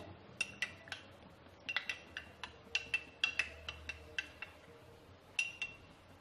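A spoon clinking against the inside of a glass tumbler while stirring custard powder into a little warm milk to a smooth, lump-free paste. Light, irregular clinks with a short ring, a brief pause about a second before the end, then two more.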